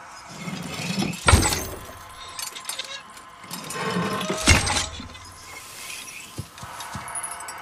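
Two sharp crashing clatters about three seconds apart, like brittle things breaking and rattling, each led in by a low swelling rumble.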